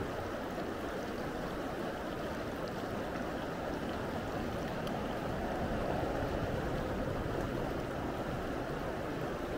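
Steady rushing of a river current: an even, unbroken wash of water noise.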